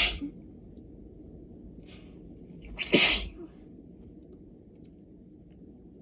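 A person sneezing from allergies: one sharp sneeze right at the start, a short breath in, then a second sneeze about three seconds in.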